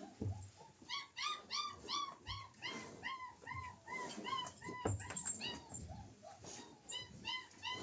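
Dog whining in a quick run of short, high yelps, about three a second, with a few dull knocks underneath.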